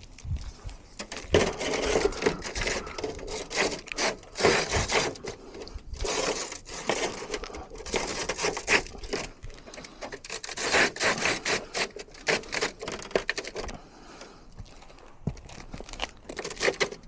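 Irregular scraping, crinkling and clattering of hands working in a rain gutter, with many short knocks.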